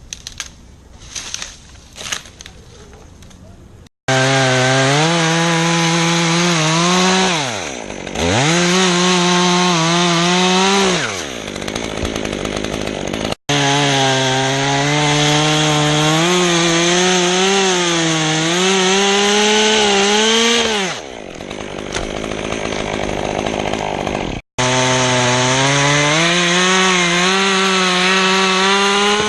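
Chainsaw running at high revs and cutting wood, after a few seconds of light knocks. Its revs sag and pick back up several times as the chain bogs in the cut. The sound breaks off abruptly a couple of times.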